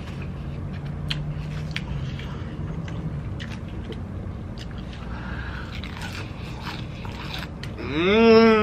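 Close-up chewing of a mouthful of double cheeseburger, with small wet clicks and smacks of the mouth. Near the end comes a loud hum that rises and falls in pitch.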